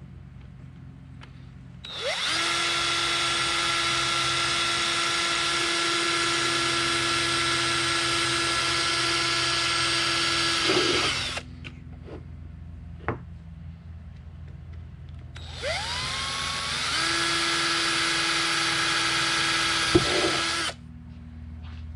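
Cordless drill boring a 1/8-inch bit into PVC pipe: the motor spins up to a steady high whine and runs for about nine seconds, stops, then runs again for about five seconds, rising in pitch in two steps as the trigger is squeezed. A few short knocks in between and near the end.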